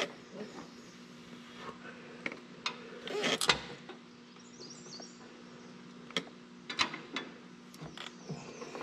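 A few scattered light clicks and taps of a steel hydraulic line and its compression nut being handled and positioned by hand at the tractor's rear axle fitting, the loudest about three and a half seconds in, over a faint steady hum.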